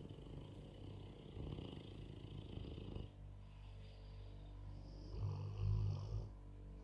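Dog snoring: a long fluttering snore of about three seconds, then a second, shorter and louder snore near the end.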